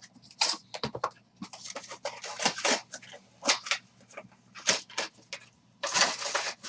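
Handling of a 2020 Bowman's Best trading-card box and its packs: a rapid run of short cardboard and wrapper crinkles, scrapes and taps, with a longer, louder rustle about six seconds in.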